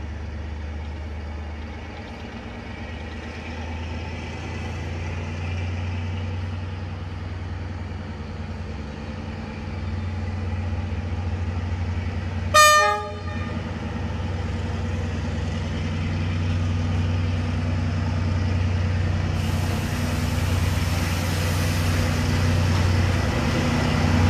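Vietnam Railways D19E diesel-electric locomotive approaching slowly, its engine a steady low rumble that grows louder, with one short horn blast about halfway through.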